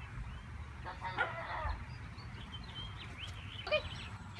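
A small dog gives short, high-pitched yips, once about a second in and again near the end, with small birds chirping in the background.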